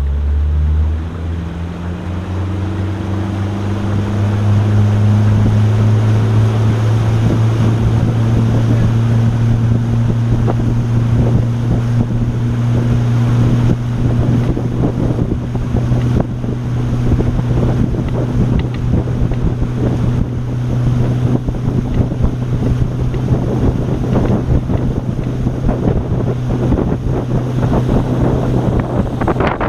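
Motorboat engine revving up as the boat gets underway, its pitch rising over the first few seconds, then running steadily at cruising speed. Wind buffets the microphone and water rushes past the hull throughout.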